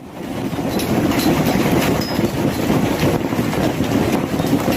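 Hailstorm: a dense, steady rush of hail and rain falling, with many sharp clicks of hailstones striking hard surfaces.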